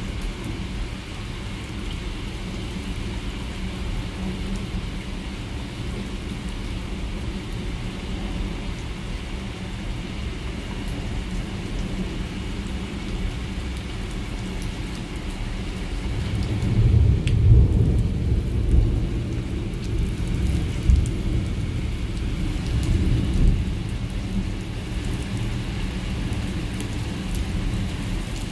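Heavy thunderstorm rain pouring steadily. About sixteen seconds in, a long low rumble of thunder rolls in and swells several times before easing off.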